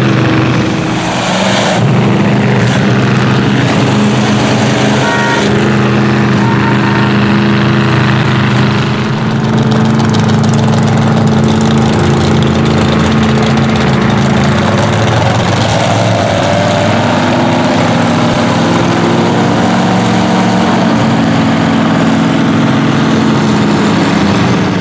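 Lifted Chevy mud trucks on oversized tractor tires driving past, their engines running loud at a low, steady pitch that shifts up and down as the throttle changes, twice over the span.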